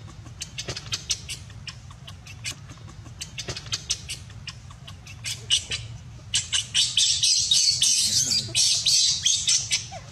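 Baby macaque crying with shrill, high-pitched squeals: scattered short sharp cries at first, then a loud, dense run of rapid screeching from about six seconds in until just before the end. It is protesting at being denied its mother's milk.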